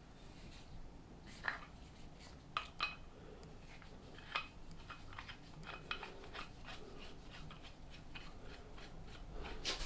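Scattered light metallic clicks and scrapes of small steel parts and hand tools being handled, louder clicks about a second and a half, two and a half and four and a half seconds in.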